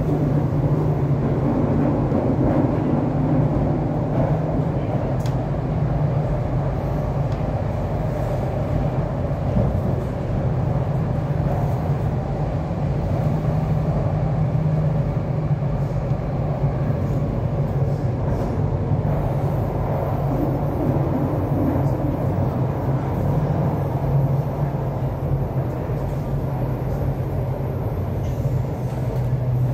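MTR C-Train electric multiple unit running at speed, heard from inside the car: a steady, unbroken rumble of wheels on rail with a low hum.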